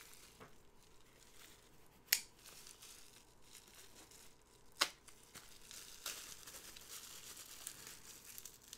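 Plastic bubble wrap crinkling faintly as it is handled, with two sharp clicks a few seconds apart. From about six seconds in comes a soft, continuous crinkling and tearing as a folding knife cuts into a bubble-wrap bag.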